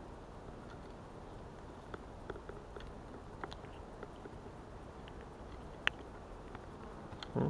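Faint clicks and rustles of hands close to the microphone, unhooking a small European perch from a jig, with one sharper click about six seconds in and a short thump near the end.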